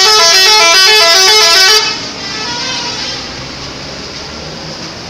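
Bus telolet horn playing its multi-note melody, the tones stepping up and down repeatedly, very loud, cutting off suddenly about two seconds in. A steady lower background noise remains after it.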